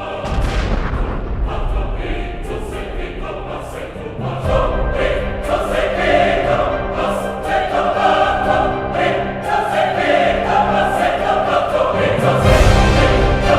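Choral music: a choir singing over instrumental backing, swelling fuller about four seconds in and again near the end.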